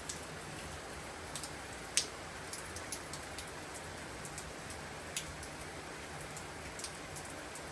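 Rain falling steadily, with irregular sharp taps of single drops striking a surface; the loudest tap comes about two seconds in.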